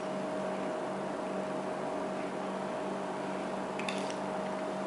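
Steady electrical hum and hiss of room background, with one constant mid-pitched tone. About four seconds in there are a few faint light clicks or rustles as the foil-wrapped match bundle is handled on the counter.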